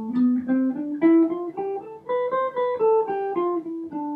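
Semi-hollow electric guitar playing a C major scale one note at a time, in a two-note-per-string fingering starting on F (the Lydian position). It plays about four notes a second, climbing for about three seconds and then stepping back down.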